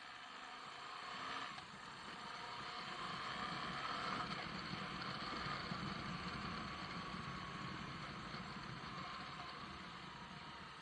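Moto Guzzi V85 TT's air-cooled V-twin running as the bike rides along and picks up speed, mixed with wind rush. The sound grows louder over the first few seconds, with a brief dip about one and a half seconds in.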